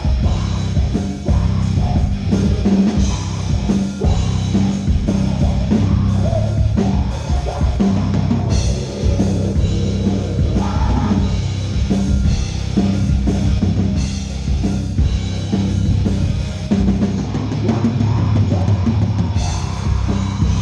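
A rock band playing live at full volume, the drum kit prominent with a steady beat.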